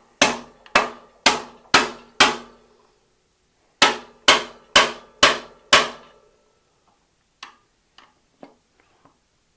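Hammer blows on a Park Tool bottom bracket bearing removal tool, metal striking metal with a short ring after each, driving a press-fit BB92 bottom bracket cup out of the frame. Two runs of five strikes at about two a second, with a short pause between them, then a few light clicks near the end.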